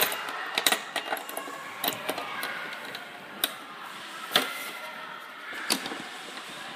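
Sharp clicks and taps from the parts of an opened hotel mortise lock mechanism being handled, about eight irregular clicks over a steady hiss.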